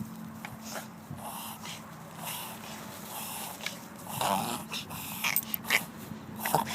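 A dog coughing in a run of short noisy bursts, louder and sharper in the last few seconds; the owner suspects kennel cough.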